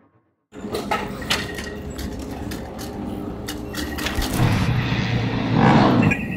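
Motorcycle racing pit-lane ambience: scattered clicks and knocks of mechanics' tools and equipment over a low steady machinery hum, starting after half a second of silence. A louder rushing noise swells about four seconds in and eases off near the end.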